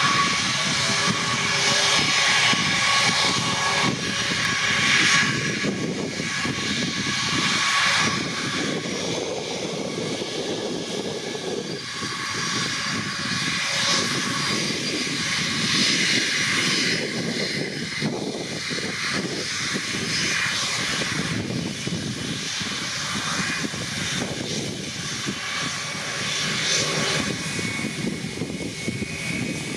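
Airbus A321 turbofan jet engines running at low taxi power: a steady jet whine with thin high tones over a rushing hiss.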